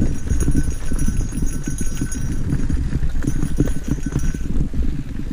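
Mountain bike riding fast down rocky dirt singletrack: rapid, irregular rattling and knocking of the bike and its tyres over stones and gravel, over a steady low rumble of wind on the camera's microphone.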